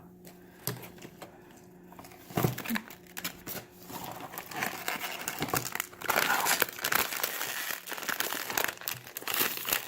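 Thin plastic blind-box bag crinkling and crackling as it is handled and opened to get at the figure inside, starting a couple of seconds in and growing denser in the second half.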